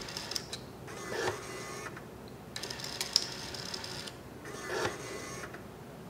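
Brother label maker printing and feeding its label tape out of the slot, its motor whirring in several short bursts with brief pauses between them.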